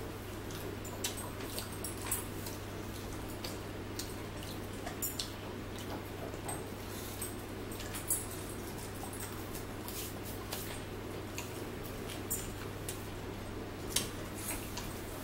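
Close-up mouth sounds of people eating chicken nuggets: chewing and lip smacks as many short, scattered clicks, with an occasional louder tap about eight seconds in and near the end, over a steady low hum.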